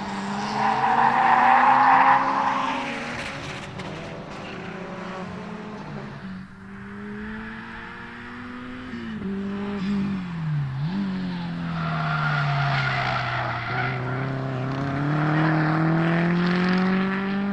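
Turbocharged rally-style car engine running on a race circuit, its revs falling and rising through gear changes, with a brief sharp drop and pick-up about eleven seconds in. A louder rushing noise sits over the engine for the first few seconds.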